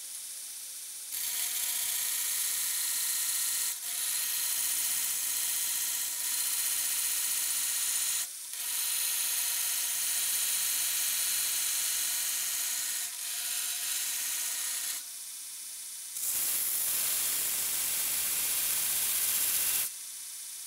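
Belt grinder running, with a metal workpiece pressed against the abrasive belt in about five passes of a few seconds each. Each pass is a loud, steady grinding hiss, and the motor's steady whir comes through in the short breaks between them, the longest about two thirds of the way through.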